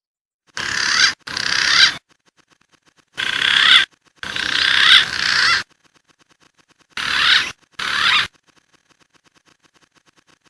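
Green pigeon (punai) calls, loud: six wavering whistled phrases in three pairs, most under a second long, the fourth about a second and a half.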